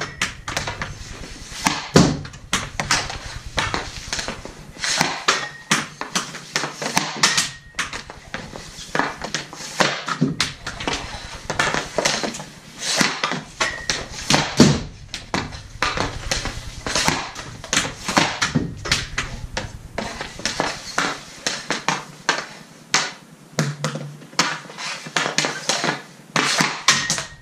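Hockey sticks and pucks clacking on a synthetic-ice floor: quick irregular stickhandling taps and shots, with a few louder cracks of puck hitting stick or boards, about 2 s and about 14.5 s in, echoing in a small room.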